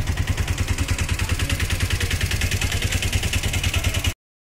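Auto-rickshaw engine idling with a fast, even putter of about seven throbs a second, stopping abruptly about four seconds in.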